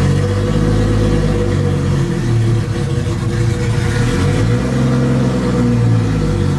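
Nissan Skyline's RB-series engine running after more than two years off the road, its pitch rising and falling a little.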